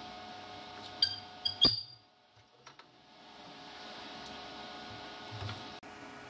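Short metal-on-metal squeaks from the dry steel pivot of a foundry lid as the lid is swung on its post: three chirps in the first two seconds, the last ending in a clunk. The pivot runs ungreased because grease would burn off. A steady faint hiss follows.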